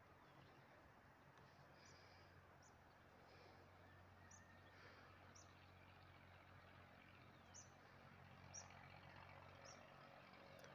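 Near silence: faint outdoor ambience with short, high bird chirps about once a second over a steady low hum.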